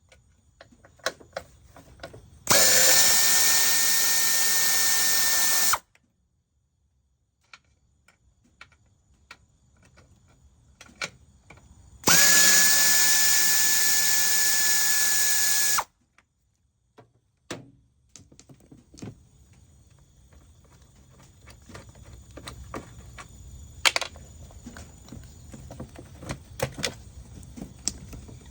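Power ratchet run in two bursts of about three seconds each, a steady whine over hiss, taking fasteners back out. Small clicks and handling noises come between the bursts and after them.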